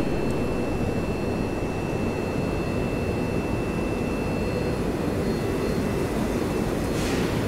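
Train in motion: a steady low rumble with a faint high whine held throughout, and a short hiss near the end.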